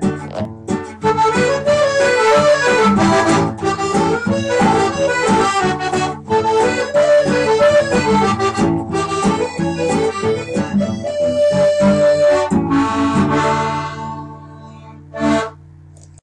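Instrumental music without singing, the closing part of a children's song. It winds down about two seconds before the end, and one short final note follows.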